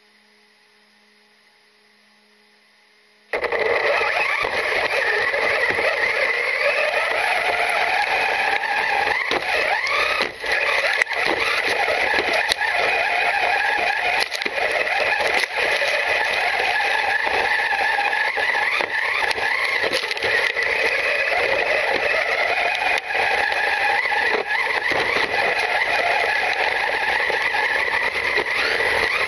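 Onboard sound of a Traxxas Slash 4x4 electric RC truck driving over sand: a harsh, steady noise of motor and gear whine that rises and falls with the throttle, with rattling. It starts abruptly about three seconds in, after a faint hum.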